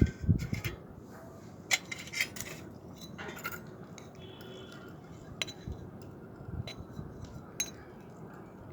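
Scattered clinks and taps of kitchen utensils against a bowl, from grated ginger being pressed through a tea strainer to squeeze out its juice.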